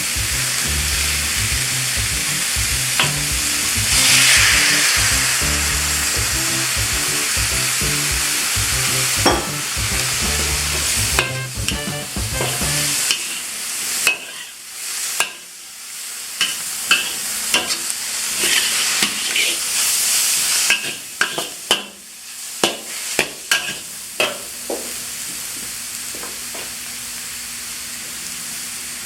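Chicken and vegetables sizzling in a hot stir-fry pan as they are stirred, with a louder surge of sizzle about four seconds in as the cooking wine goes in. In the second half, the spatula clicks and scrapes against the pan again and again.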